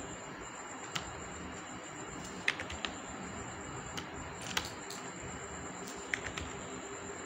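Scattered clicks of computer keys and a mouse, about seven of them at irregular intervals, over a steady background hiss.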